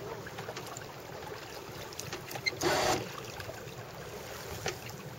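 Steady water and wind noise aboard a small sailboat under way, with a brief louder rush of noise about halfway through.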